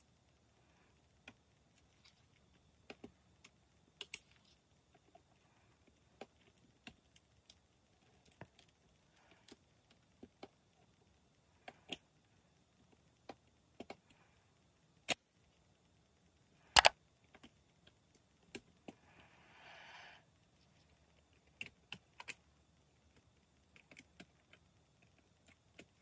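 Faint, scattered small clicks and taps of metal tweezers against flex cable connectors on a Nintendo Switch Lite motherboard as the ribbon cables are pressed home. Two sharper clicks come past the middle, followed shortly by a brief soft rustle.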